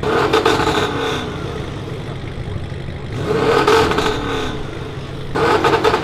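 Audi RS6, tuned to about 640 horsepower, revved hard three times while standing still. Each blip rises and falls back, the second one the longest, with the engine running steadily in between.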